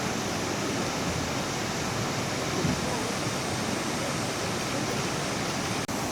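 Mountain valley stream rushing steadily, an even wash of water noise, with a brief dropout near the end.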